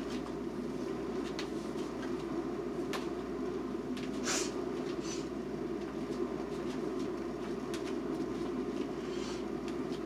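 Topwit glass electric kettle heating water that is hot but not yet boiling: a steady low rumble as small bubbles form and collapse on the heating plate, with a few soft ticks and a brief hiss about four seconds in.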